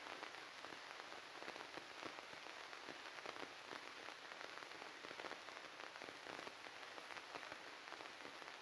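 Steady crackling static: a dense, even stream of small clicks over a hiss, with no other sound behind it. It is the kind of noise a faulty or glitching audio signal makes, and the uploader calls the sound bugged.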